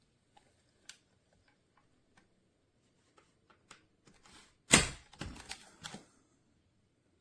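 Handling noises from a cordless stick vacuum's plastic body: scattered light clicks, then one sharp knock about five seconds in followed by a second of clattering.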